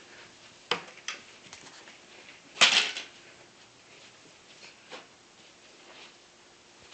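Hollow clear plastic ball knocked and rolled about by a puppy on carpet: a few light clicks, then a louder clatter about two and a half seconds in, and a couple of faint knocks later.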